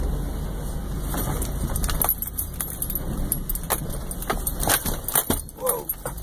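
Vehicle cab jolting along a rough dirt trail: a steady low engine and road rumble with irregular rattles and clinks of loose things shaking in the cab.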